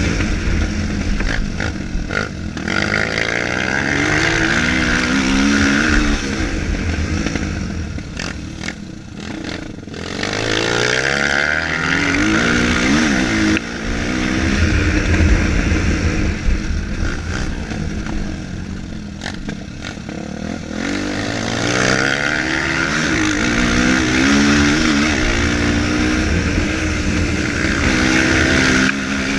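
Single-cylinder four-stroke dirt bikes (a Honda CRF230 and a Honda Tornado) revving hard and backing off again and again, the engine pitch climbing and dropping every few seconds as they accelerate and shift.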